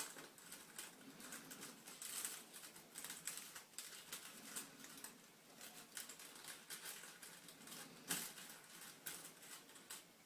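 Faint, irregular light clicks and ticks of small metal pieces being handled: neodymium cube magnets and paper clips clicking together, with a sharper click about eight seconds in.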